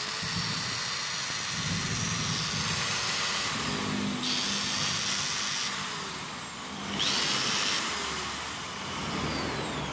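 Makita 9553 angle grinder with a newly fitted armature, running on test. The motor whine rises at the start and twice more, easing off in between, with a rubbing noise: the armature is scraping against the stator because the bearing housing is damaged.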